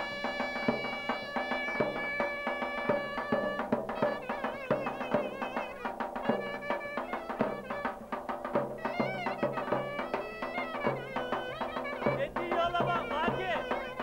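Turkish folk music on davul and a reed instrument: the davul beats a steady rhythm under a shrill reed melody. The melody holds long notes for the first few seconds, then breaks into fast, wavering ornamented runs.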